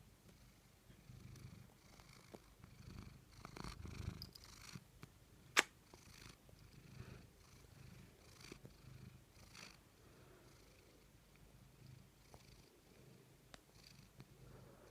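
A cat purring close to the microphone, a low pulsing rumble that swells and eases with its breathing. There is a brief rustle about four seconds in and a single sharp click just after.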